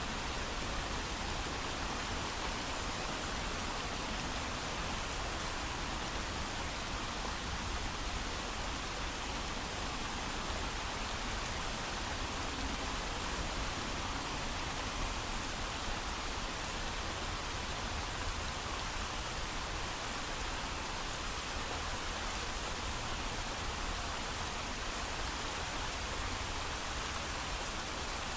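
Steady heavy rain falling, an even hiss with no thunder.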